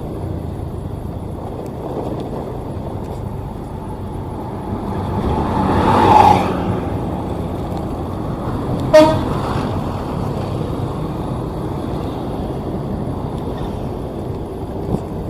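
Steady vehicle engine and road noise, with a vehicle horn swelling up and cutting off about six seconds in, then a short sharp horn toot about nine seconds in.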